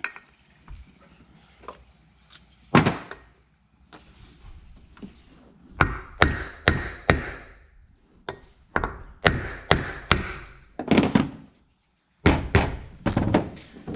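A run of knocks and thuds from work on a poly dump cart's wheel and axle during a wheel swap. There is one loud knock about three seconds in, then knocks at about two a second from about six seconds on, a short pause, and another cluster near the end.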